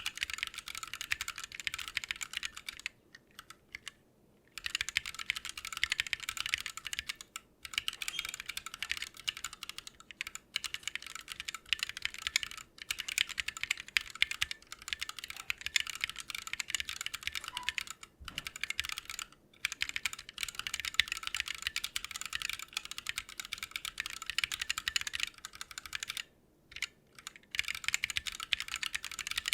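Fast continuous typing on a Lily58 Pro split mechanical keyboard with Blue Bubblegum switches, a dense run of crisp keystroke clicks broken by a few short pauses.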